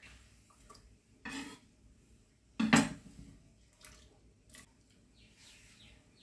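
A chef's knife and a bowl knocking against a wooden cutting board as diced potato is scraped off and the knife set down: four separate knocks, the loudest about two and a half seconds in.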